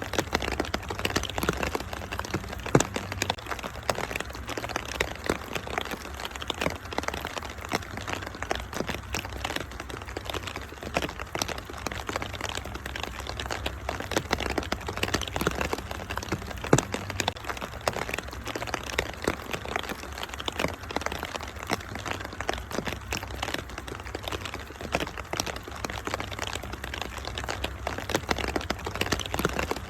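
Wood fire crackling, with frequent irregular pops and snaps, over a steady hiss of rain and a low steady rumble.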